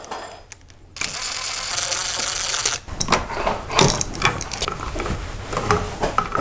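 Brushless cordless drill-driver running steadily for about two seconds as it backs out the receptacle's mounting screws. Scattered light clicks and knocks follow as the receptacle and its wires are pulled from the plastic electrical box.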